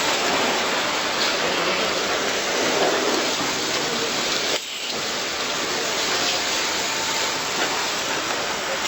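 Steady hiss of water spraying and splashing, as from the jets of an automatic train-washing plant, with a brief dip about four and a half seconds in.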